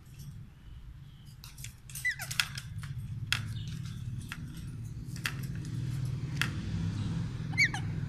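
Two short falling calls from the caged parakeets, about two seconds in and near the end, among scattered sharp clicks and knocks on the wire cage, over a steady low hum.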